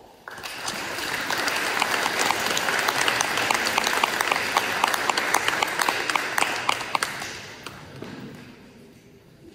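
Audience applauding. The clapping builds within the first second and fades away over the last couple of seconds.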